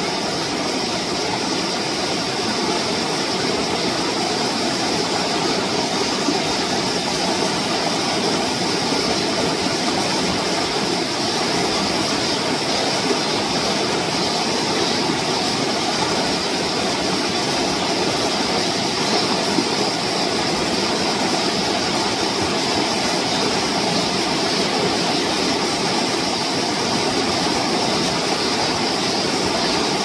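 Stream water rushing and splashing over rocks in a shallow mountain brook, a steady wash of noise without a break.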